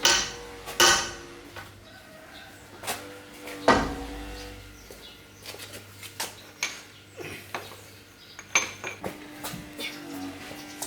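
Metal clanking and knocking as tools and truck parts are handled, an irregular string of sharp knocks, the strongest ones near the start and about four seconds in followed by a brief ringing.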